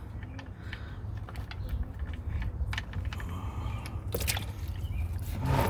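Oil drain plug being backed out with scattered small metallic clicks, while engine oil starts to run into the drip pan.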